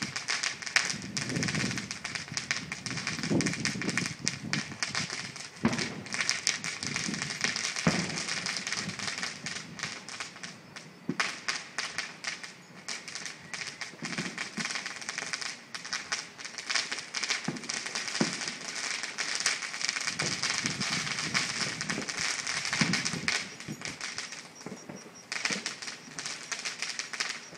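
Fireworks going off: a dense, continuous crackling of many small pops, broken by a few sharper bangs.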